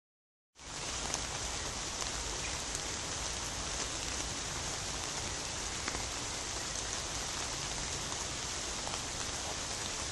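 Steady hiss of light rain falling, with faint scattered ticks of drops.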